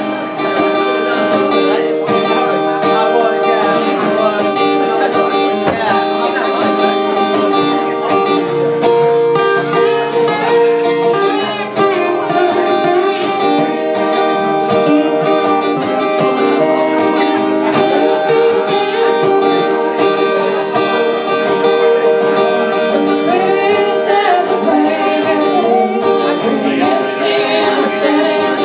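Live band music: guitar playing with singing.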